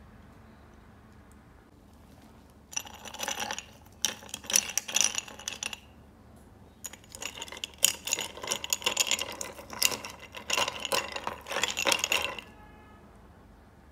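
Ice cubes clinking and rattling against a tall drinking glass as a drink is stirred with a plastic stirrer. The clinking comes in three bouts: a short one, a second of about two seconds, and a long last one of several seconds that stops near the end.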